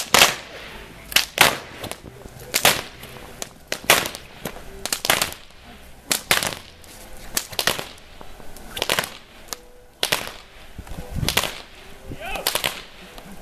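Hungarian herdsmen's long whips cracking over and over, a sharp crack or a quick double crack roughly every second or so.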